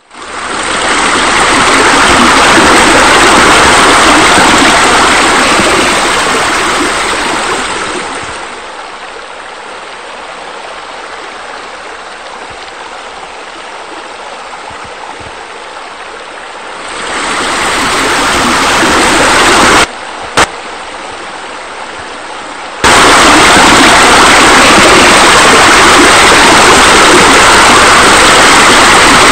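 Steady rushing water, like a pool waterfall or spa jets. It is loud at first, eases to a quieter level about 8 seconds in, swells again, drops out for an instant near the 20-second mark, and jumps sharply back to full loudness a few seconds later.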